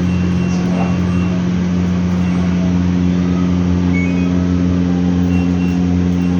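LG washing machines running during a function test after maintenance, their motors giving a loud, steady low hum; a second, slightly higher hum joins a little less than halfway through.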